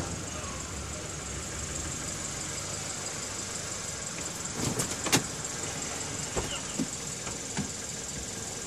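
A car's steady running noise, with a quick cluster of sharp clicks and clunks about halfway through and a few softer clicks after.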